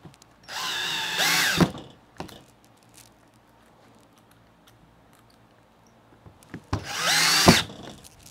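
Cordless drill run twice in runs of about a second, driving screws through the aluminum side trim into the camper door; the motor's whine climbs near the end of each run and then cuts off, with faint clicks in between.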